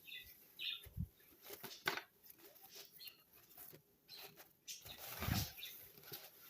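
Faint scattered rustling, taps and small knocks as a folded fabric pop-up tunnel is handled and unfolded.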